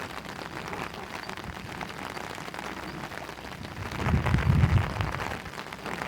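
Heavy rain falling, a dense patter of drops. About four seconds in, a low rumble rises for about a second.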